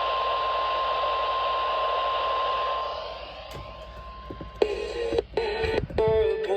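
Weather radio's single steady 1050 Hz warning alarm tone over radio static, the signal that a warning such as a tornado warning is about to be broadcast; it stops about three seconds in. Near the end a voice starts speaking over the radio.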